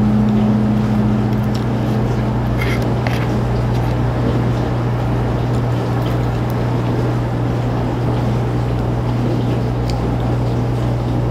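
Steady low mechanical hum from a running machine. A second, higher tone fades out about two and a half seconds in, and there are a few faint clicks.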